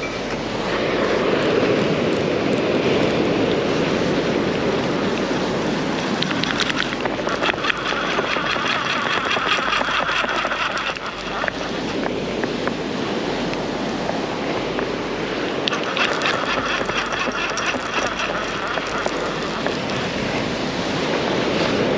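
Steady rush of surf and wind at the shoreline. Twice, for a few seconds each, a rapid rhythmic whirring rises over it, about seven and sixteen seconds in.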